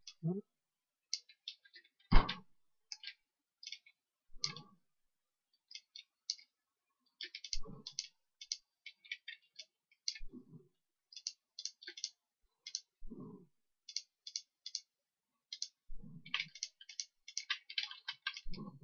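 Computer mouse clicking over and over, in quick runs of several clicks a second, as edges are selected one by one. A few short low sounds fall between the runs, the loudest a thump about two seconds in.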